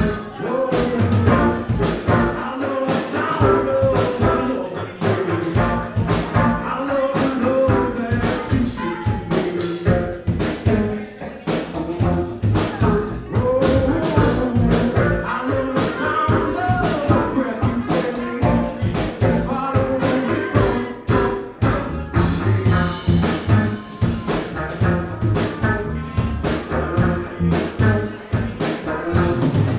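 Live band playing a song, with a drum kit keeping a steady beat under pitched instruments.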